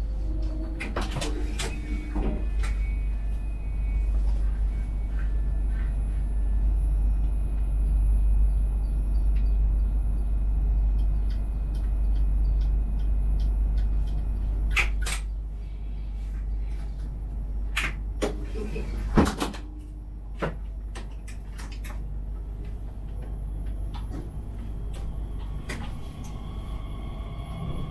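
Talent 3 electric multiple unit standing at a platform: a steady low hum from its onboard equipment, with a few sharp clicks and knocks. Near the end a whine of the electric traction drive sets in as the train starts to pull away.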